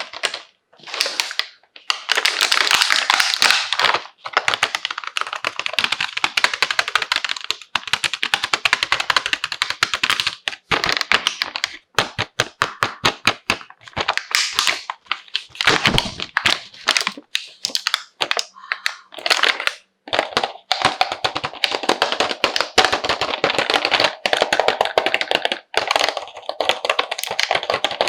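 Toy packaging and small plastic toy parts handled up close: dense crackling and rustling broken by many quick taps and clicks.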